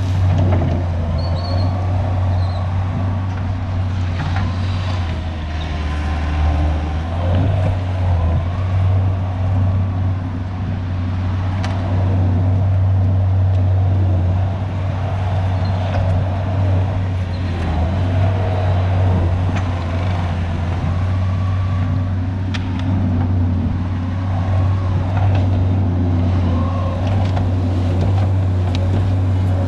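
Diesel engine of tracked heavy equipment running steadily under load, with a brief change in engine note a few seconds in and a few sharp metallic clanks.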